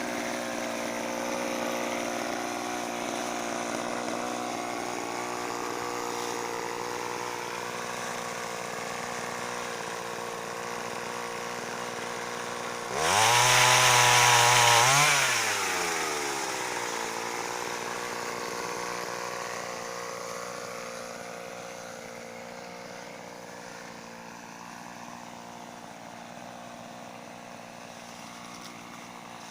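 Mitsubishi TL26 two-stroke brush-cutter engine on a pole saw, running steadily at idle. Near the middle it is revved hard for about two seconds, then its pitch falls back to idle.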